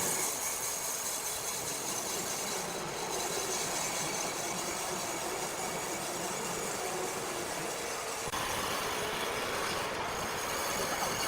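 Machinery running with a steady noisy rush and a faint high whine; the sound changes abruptly about eight seconds in.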